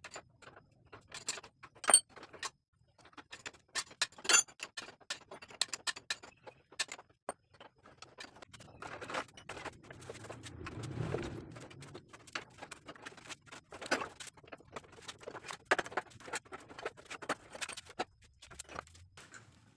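Metal clinks, knocks and rattles of hand tools and wheel parts as the rear wheel of a Honda Wave motorcycle is taken off. The sharpest clinks come about 2 and 4 seconds in. A duller scraping rumble comes around the middle.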